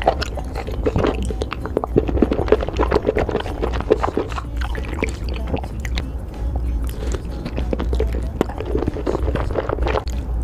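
Close-miked chewing and biting of chewy, sauce-coated seafood: a dense run of wet, sticky mouth clicks and smacks. Near the end a skewered fish cake squelches as it is dragged through thick sauce.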